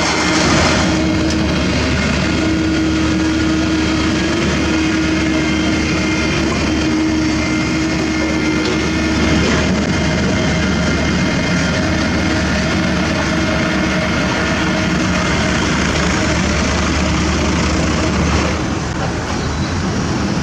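Diesel engine of heavy construction machinery running steadily, with a constant tone over its low hum for much of the time.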